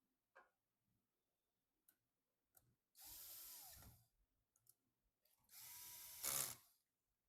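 Small electric screwdriver running in two short bursts of about a second each, its motor winding down at the end of the first, with a few light clicks before.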